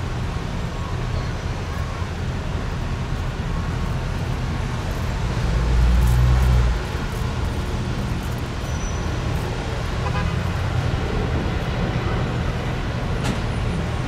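Steady road traffic noise: cars running and tyres on pavement, a constant low rumble. About six seconds in, the rumble swells louder for about a second, then settles back.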